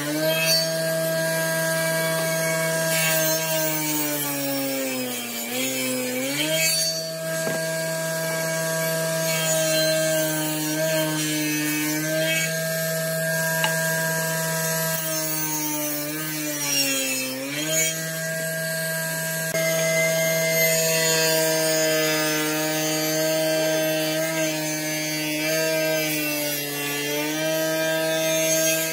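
Table saw running with a steady whine while ripping wood boards. Twice, about five and seventeen seconds in, the pitch sags and then climbs back as the motor slows under the cut.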